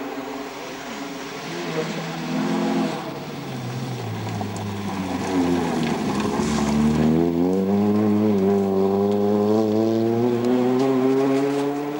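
Peugeot 206 rally car's engine passing close by. The pitch drops as it slows for the bend, then climbs steadily as it accelerates away in gear, growing louder.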